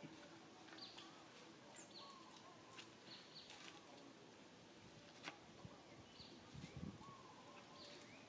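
Faint outdoor ambience: short, high bird chirps repeat every second or so over a low steady hum, with a few soft low thumps about six to seven seconds in.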